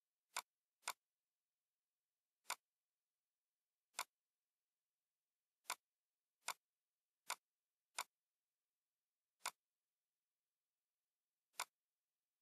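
Computer mouse clicks: ten short, sharp clicks at uneven intervals, two close together near the start and a run of four quicker ones in the middle, with dead silence in between.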